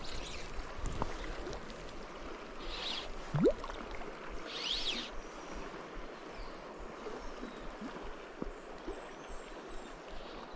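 Shallow river running over a stony bed: a steady wash of flowing water. About a third of the way in there is one short rising swish, the loudest sound here.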